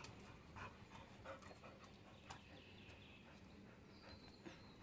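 Near silence, with a Labrador retriever panting faintly and a few faint taps.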